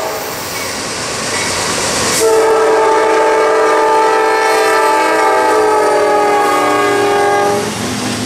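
Norfolk Southern diesel locomotive's multi-chime air horn sounding one long blast of several notes together as the train passes close by, over the rumble of the moving freight train. The horn comes in sharply about two seconds in, its pitch sags slightly near the end as the locomotive goes by, and it fades just before the end.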